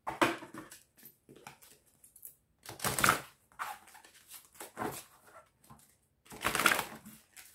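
Tarot cards being shuffled by hand: a run of short rustling swishes, the four loudest about two seconds apart, with softer rustles between.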